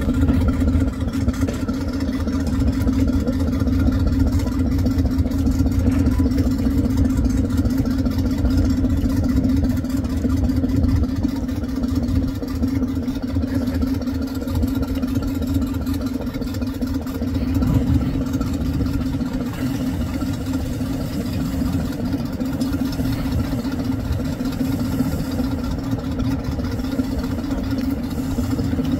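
An engine idling steadily, a low, even hum that does not rise or fall.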